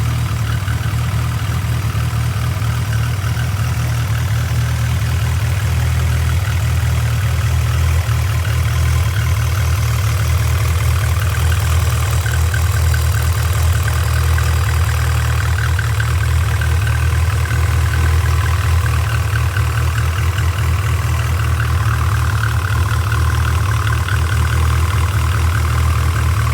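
Nissan SR20DET turbocharged four-cylinder engine idling steadily, with a fast, light chirping over the idle. The chirp is the noise being diagnosed.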